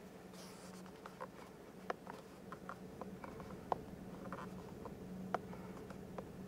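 A 2014 Chevrolet Silverado 1500's V6 engine idling in Park, a faint steady hum inside the cab, with a dozen or so light, irregular clicks as the steering-wheel buttons are pressed to scroll the instrument-cluster menu; the sharpest clicks come about two, four and five and a half seconds in.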